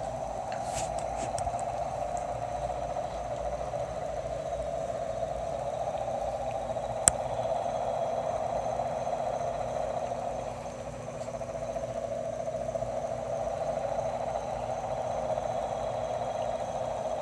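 A steady, unexplained droning hum that sounds like a helicopter hovering behind nearby buildings. It eases off briefly about ten seconds in, then returns. A single sharp click is heard about seven seconds in.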